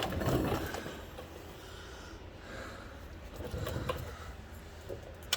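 Faint rustling and handling noise with a person breathing, and a sharp click at the very start.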